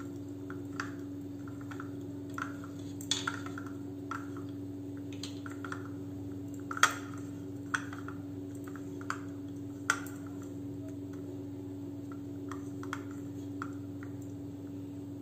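Hand mixing a garlic and chilli-flake topping in a small ceramic bowl: scattered light clicks and taps of fingers against the bowl, the loudest around seven and ten seconds in, over a steady low hum.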